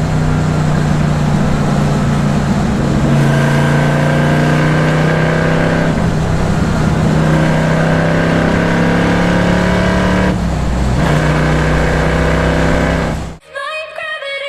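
1965 Shelby GT350's 289 V8 exhaust running under load while driving, with a break in the engine note about six seconds in and again about ten and a half seconds in, like gear changes. It cuts off abruptly near the end, replaced by electronic music.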